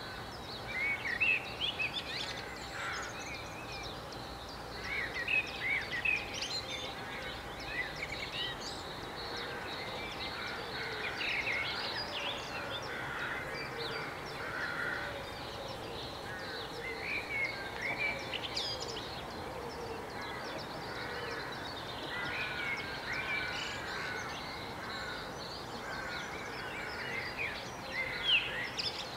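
Birds singing and calling in short, irregular chirping phrases, over a steady hiss of outdoor background noise.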